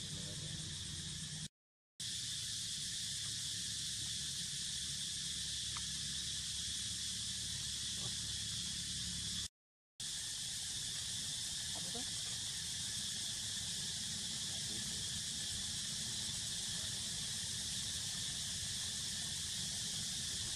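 Steady outdoor background hiss with a high, even band like a distant insect chorus, broken twice by a sudden half-second of complete silence, about one and a half seconds in and again about nine and a half seconds in.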